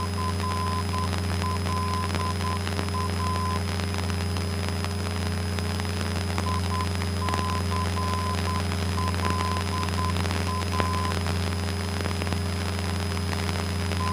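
Cessna 172N's four-cylinder Lycoming engine and propeller droning steadily in cruise, heard in the cockpit. Over it, a high beeping tone comes and goes in short and long pulses, like a radio navigation beacon's Morse-code identifier coming through the radio.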